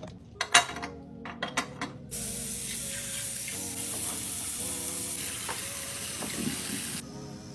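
A few sharp clinks, then a steady hiss that starts suddenly about two seconds in and cuts off suddenly about five seconds later.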